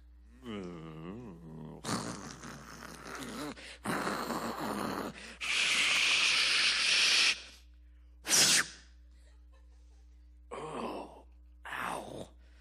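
A man making vocal sound effects into a handheld microphone. A wavering, groaning voice comes first, then a run of hissing, rushing mouth noises, the longest and loudest about halfway through, then a few short bursts near the end.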